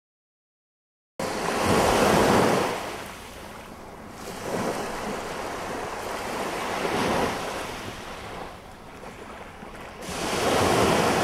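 Small sea waves breaking and washing up a sandy shore, swelling and ebbing every few seconds, with wind on the microphone. The sound starts suddenly about a second in.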